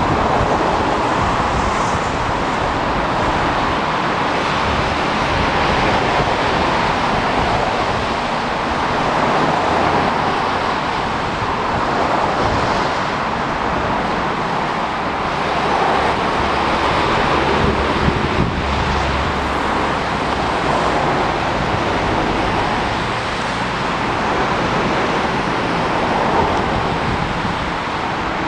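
Steady outdoor rushing noise that swells and eases slowly, with no single engine, horn or wheel sound standing out.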